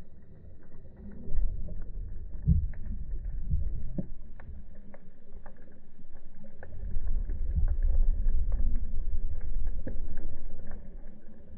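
Low underwater rumble of ocean swell surging over a reef, heard from beneath the surface, with louder surges about a second in and again from about seven seconds in. Scattered faint clicks run through it.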